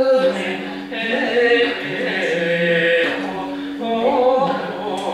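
Japanese folk dance song sung in long, drawn-out notes, the melody stepping between held pitches.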